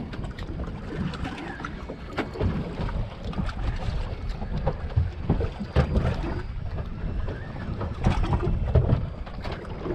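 Wind buffeting the microphone and water slapping against a small boat's hull, with scattered knocks and clicks.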